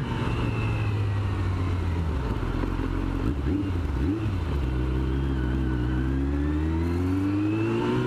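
Yamaha sport bike engine, revs falling as it slows to a stop about halfway through, then rising steadily as it pulls away and accelerates near the end.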